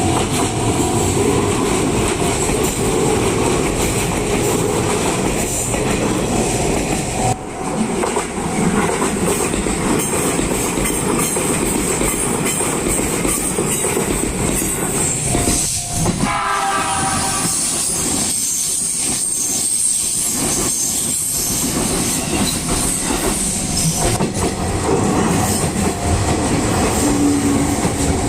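Izu-Hakone Railway Sunzu Line electric train passing close by at a level crossing, its wheels clacking over the rail joints, with a short blast of the train's horn about two-thirds of the way through.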